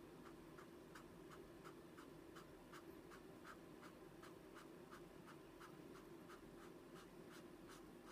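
Paper blending stump rubbed over cardstock in short, faint scratchy strokes, about three a second, working colored pencil softened with paint thinner into small flecks. A faint steady low hum lies underneath.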